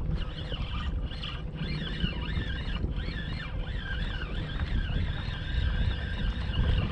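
Fishing reel being cranked to bring in a hooked trout, a whirring whine that wavers up and down in pitch, over wind rumbling on the microphone.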